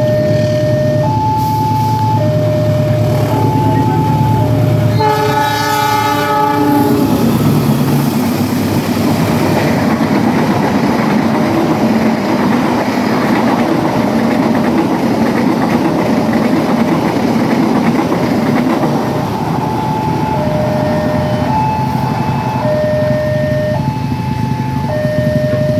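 Diesel-electric locomotive sounding one loud multi-note horn blast for about two seconds, about five seconds in. A train then runs past with a steady rumble of engine and wheels on the rails. A two-tone warning signal alternates high and low at the start and again near the end.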